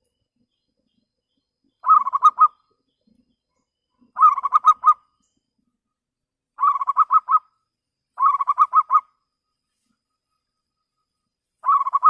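Zebra dove (perkutut) cooing: four short, rapid staccato coo phrases a couple of seconds apart, a fifth starting near the end.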